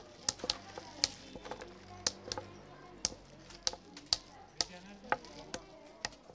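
Antep pistachio shells being cracked open and sorted by hand on a wooden board: sharp, irregular clicks, about two a second.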